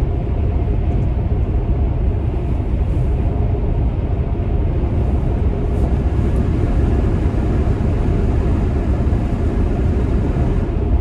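Steady road and tyre rumble inside a Tesla Model X's cabin at highway speed, with the climate fan blowing.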